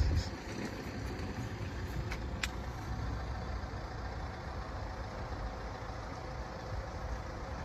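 A steady low rumble of an idling engine, with a couple of faint ticks about two seconds in.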